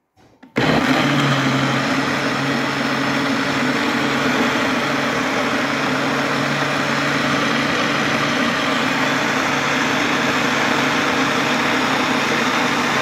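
Electric blender motor running steadily, grinding cooked onion, tomato and spice masala into a paste. It switches on about half a second in and holds an even whirr with a low motor hum.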